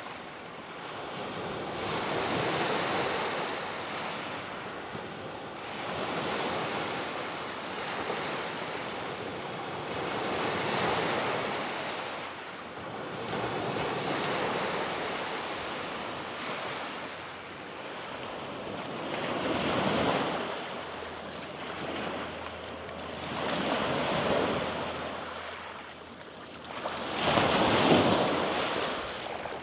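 Lake Michigan waves washing onto the beach, the surf swelling and falling back about every four seconds, with the loudest wave near the end.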